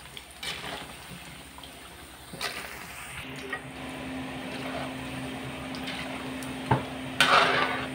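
Orange-battered quail eggs deep-frying in hot oil, sizzling, while a metal ladle stirs them and scrapes and knocks against the metal wok, loudest near the end. A steady low hum comes in about three seconds in.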